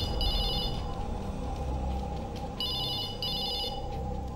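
Telephone ringing with a trilling electronic ring in pairs: one ring at the start, then a double ring about two and a half seconds in.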